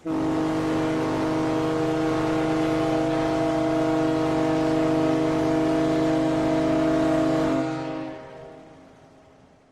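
Ship's horn sounding one long steady blast that stops about seven and a half seconds in and dies away over the next two seconds.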